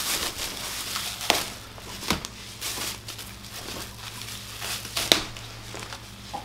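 Wrapping being crinkled and torn as a heavily wrapped package is pulled open by hand: irregular crackling with a few sharper clicks, the loudest about a second and two seconds in and again near five seconds.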